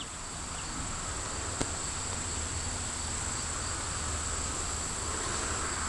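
A steady high-pitched whine over a faint hiss and low hum, with a single click about a second and a half in.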